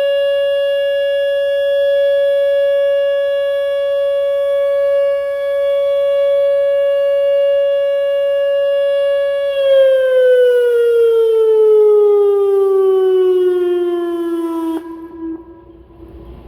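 Whelen WPS 2910 electronic outdoor warning siren sounding a steady alert tone. About nine seconds in, the pitch glides smoothly downward as the signal winds down, and then it cuts off abruptly.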